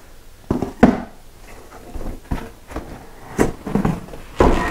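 An air compressor being lifted out of its tall cardboard box: cardboard scraping and rustling, with several irregular dull knocks and bumps as the unit and box flaps hit each other.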